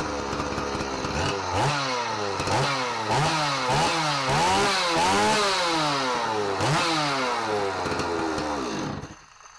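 Two-stroke chainsaw running with its muffler pipe cut short just past the hot spot. It idles, is revved up and down in a series of quick throttle blips, then shuts off near the end.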